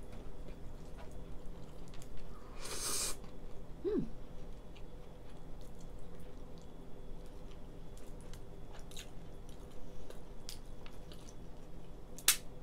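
A person eating lobster: chewing, with small clicks and crackles as the lobster shell is pulled apart by hand. There is a brief hiss about three seconds in, a short hum about a second later, and a sharp click near the end.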